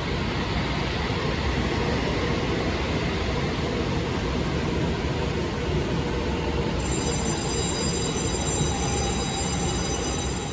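Passenger train running through a station with a steady rumble. A high, steady whine of several tones joins it about two-thirds of the way in.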